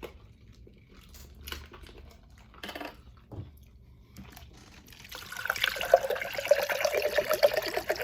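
Chilled drink poured from a bottle into a glass: a few small clicks and knocks of handling, then from about five seconds in a steady pouring rush with a ringing pitch as the glass fills.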